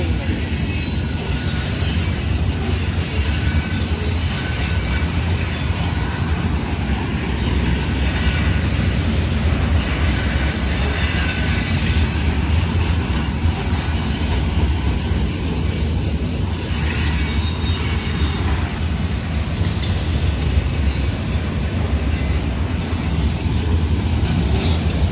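Hopper cars of a Union Pacific rock train rolling past, a steady loud rumble of steel wheels on the rails.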